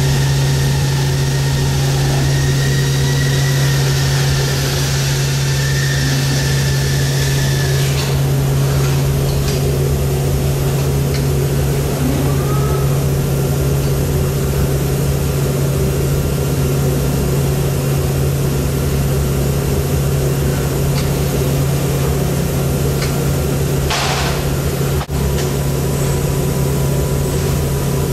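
Steady hum of an automated layer-picking robot and powered conveyor line running, with a strong constant low drone. A few light knocks come from the moving cartons and machinery, and there is a short hiss near the end.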